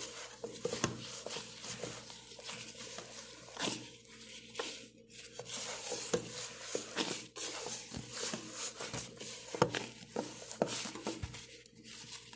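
Bread dough being kneaded by hand in a stainless steel bowl: irregular squishing and slapping strokes, with the hand and dough knocking and scraping against the bowl.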